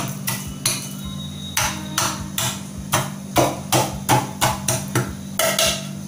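Garlic cloves being smashed with a metal pounder inside a stainless steel pot: repeated sharp metal-on-metal knocks, about three a second, with a short pause about a second in.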